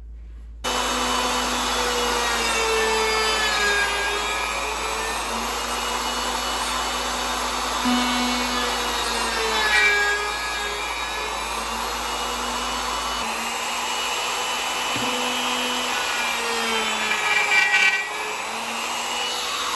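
Electric wood router running continuously while it cuts a row of shallow marble holes in a wooden game board. Its motor pitch dips and recovers again and again as the bit plunges into each hole. It starts about half a second in, with a few louder moments during cuts.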